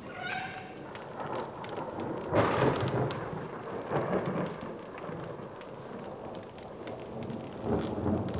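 Steady rain falling, with rumbles of thunder swelling and fading a few times.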